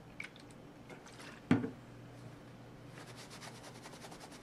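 A plastic alcohol bottle is handled with a few small clicks and set down on the table with one thump about a second and a half in. Near the end, a paper towel rubs in quick strokes on a fibreglass-reinforced nylon knife handle scale.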